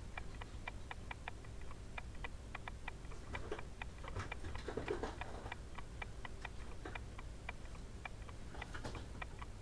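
Steady, rapid ticking, about four ticks a second, with a brief rustle about four to five seconds in.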